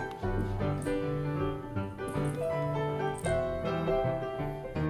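Piano music in silent-film style, many quick notes over a repeating bass line with a steady rhythm.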